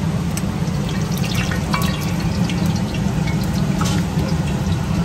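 Hot oil in a deep fryer crackling and sizzling with scattered small pops, over a steady low hum.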